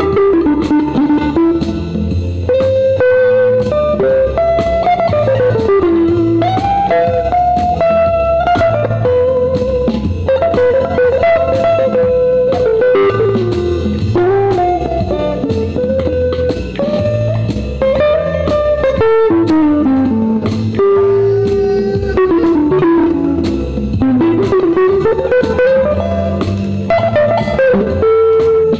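Electric guitar playing a blues lead line with bent notes that slide up and down in pitch. It is played over a backing of drums and bass.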